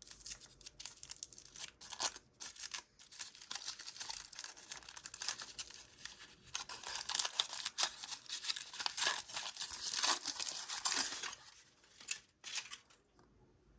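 Crinkly packaging being torn open and crumpled by hand as a toy surprise egg is unwrapped: a dense run of crackling and tearing that stops about 11 seconds in, followed by a few separate clicks.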